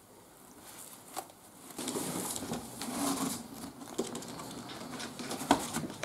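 Rustling and light clicks as a live bird of prey is held and handled, with feathers and clothing brushing together. One sharp knock comes about five and a half seconds in.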